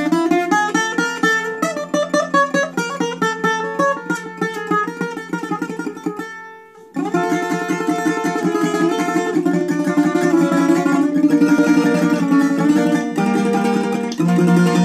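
Solo bouzouki playing a taximi improvisation in the minore mode. Runs of single picked notes die away about six seconds in, and a new phrase of fast, dense picking starts a second later.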